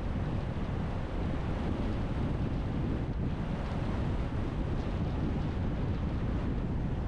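Steady rumble of wind and tyre noise from a moving car, with wind buffeting the microphone.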